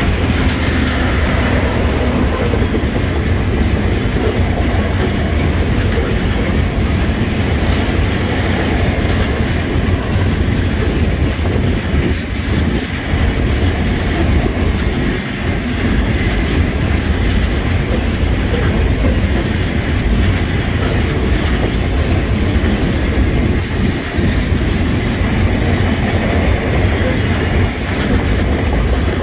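Freight train wagons loaded with refrigerated containers rolling past at speed: a steady, loud rumble of steel wheels on the rails.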